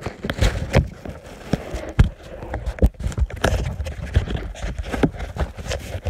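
Footsteps walking across grass, an irregular run of thuds and rustles several a second, mixed with rubbing and knocks from the phone being handled and a low wind rumble on the microphone.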